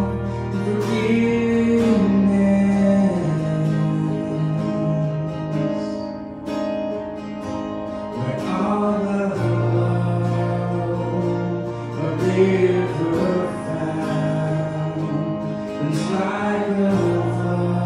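Live worship song: a man singing to his acoustic guitar over sustained keyboard chords.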